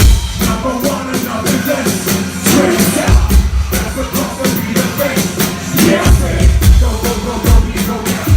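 Loud live concert music over a PA: an upbeat electronic track with heavy bass hits and a steady, driving drum beat.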